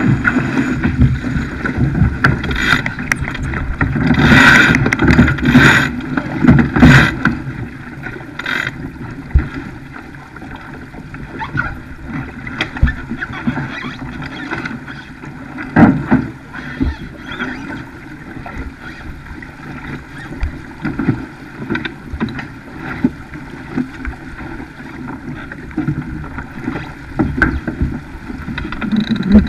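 Wind buffeting the microphone and water rushing past the hull of a Farr 280 racing sailboat sailing heeled over. It is loudest and gustiest in the first several seconds, then steadier, with scattered sharp slaps and knocks.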